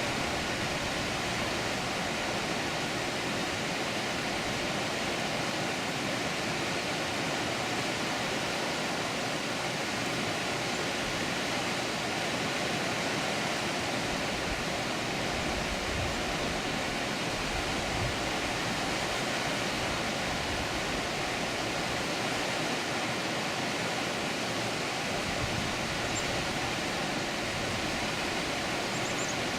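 Water rushing steadily over a dam, an even, unbroken wash of noise.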